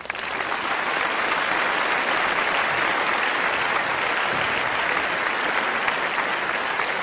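Audience applauding, many hands clapping together, swelling up within the first half second and then holding steady.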